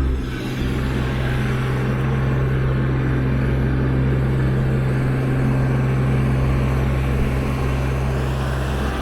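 Large vehicle engine running steadily close by: a loud, even low hum that holds without change.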